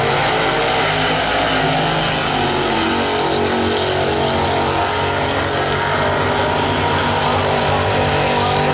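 Two drag-racing cars, a 1937 Chevy gasser and a Chevrolet El Camino, running flat out down the drag strip: a loud, continuous engine din whose notes shift in pitch as the cars accelerate away.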